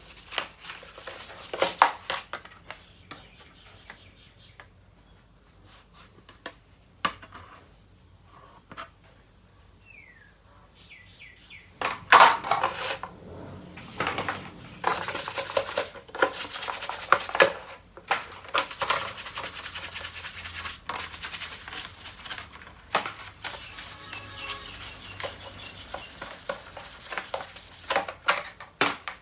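Hand cleaning of ceiling fan parts: irregular scrubbing and rubbing with knocks and clatter of handled parts. The sounds are sparse and quieter for several seconds in the first half and get busier from about twelve seconds in.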